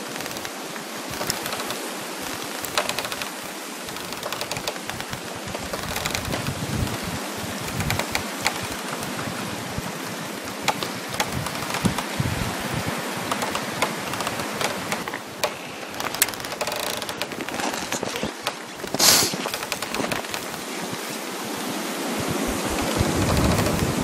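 Steady wind rushing through trees with dense small crackles of frost, and one louder crack about three quarters of the way through.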